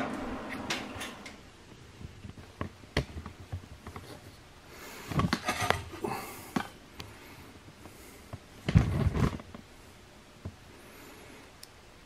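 Handling noises from go-kart drive parts being fitted and checked: scattered clicks and knocks, with louder clunks about five seconds in and again around nine seconds.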